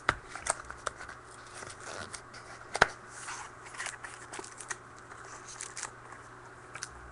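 Scissors snipping open a foil trading-card pack, with the wrapper crinkling and tearing as it is handled: scattered clicks and rustles, the sharpest a little under three seconds in.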